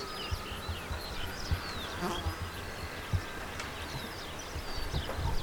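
Outdoor birdsong: many short chirps and whistles, with irregular low wind buffeting on the microphone.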